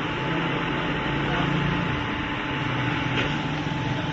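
Steady mechanical hum: a low drone that wavers slightly in pitch, with a thin high tone held above it.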